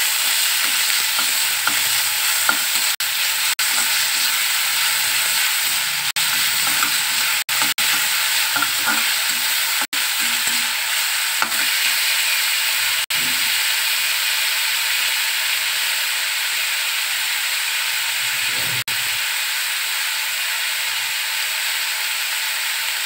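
Chopped onion and garlic sizzling in hot oil in a kadai, a steady hiss, while a flat spatula stirs them and scrapes lightly against the pan. The sizzle breaks off for a split second a few times.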